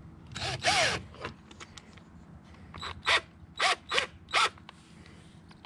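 A dog barking: two barks close together just after the start, then a run of four quick barks about three seconds in.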